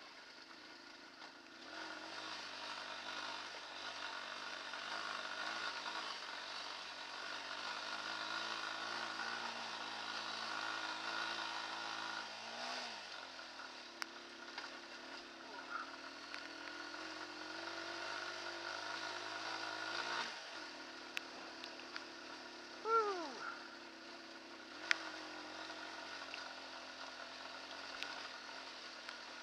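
Hartford VR150's 150cc single-cylinder, air-cooled engine running at low, steady revs on a rough rocky track, its note shifting twice along the way. Scattered sharp clicks and knocks come through, and past the middle a brief falling squeal is the loudest sound.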